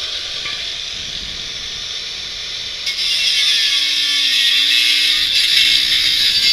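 Angle grinder cutting into a steel bicycle frame: a steady high hiss over the motor's hum. About three seconds in it grows louder and harsher, and the motor tone sags briefly under load before recovering.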